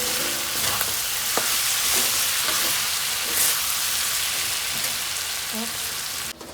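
Minced chicken frying in a pan, a steady loud sizzle with occasional clicks of a spatula stirring it. The sizzle cuts off suddenly shortly before the end.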